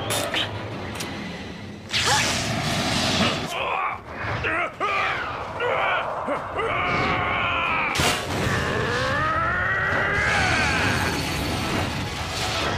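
Anime fight sound effects: sharp impact hits, the loudest about two seconds in and again about eight seconds in, under a character's long, strained wordless battle cries that rise and fall in pitch through the middle of the scene.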